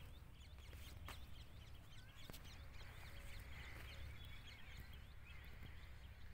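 Faint chorus of small birds chirping, many short overlapping calls, over a low steady rumble, with a couple of soft clicks.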